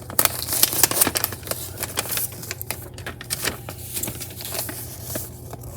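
Sealed plastic bags of Lego bricks being handled and turned over, with dense, irregular clicking and rattling of the loose bricks inside.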